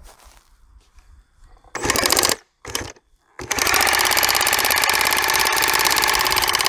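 Large power drill with a 36-inch bit boring into rock: two short bursts, then from about halfway in it runs continuously with a fast, even rattle.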